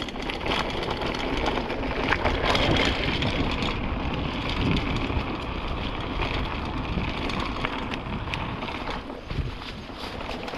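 Wind buffeting the microphone while a mountain bike is ridden, a steady rushing rumble with scattered small knocks and rattles.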